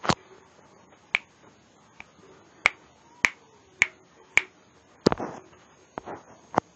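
A run of about ten sharp, snapping clicks, spaced roughly half a second to a second apart. The click about five seconds in is followed by a brief rustle of handling noise.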